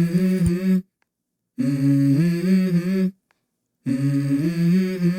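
A hummed melody in a song's intro, in short phrases of two or three held notes. Each phrase is cut off by a sudden silence, about three phrases in all.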